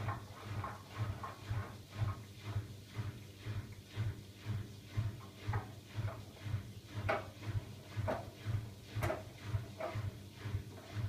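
Siemens iQ700 front-loading washing machine tumbling a wash load, with a rhythmic low pulsing about twice a second as the drum turns. A few sharp knocks come in the second half.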